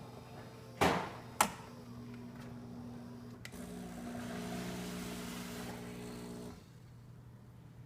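Gaggia Titanium super-automatic espresso machine working through a coffee cycle. Two sharp clicks come about a second in, then a steady mechanical hum that gets louder for a few seconds and drops off near the end.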